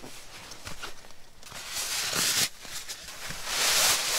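Nylon compression sack and synthetic sleeping bag rustling as a Snugpak Sleeper Expedition bag is pulled out of its sack. A few light clicks come first, then two long swishes of fabric, the louder one near the end.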